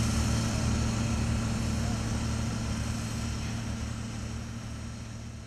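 A heavy engine running steadily with a low, even hum, fading out over the last two seconds.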